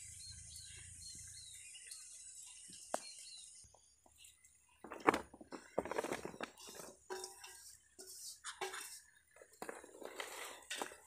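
Birds chirping faintly over an outdoor hiss for the first few seconds. After a short quiet, sliced mango is tipped from a steel bowl onto a woven bamboo tray and spread by hand: quick rustles, slaps and light knocks, the loudest about five seconds in.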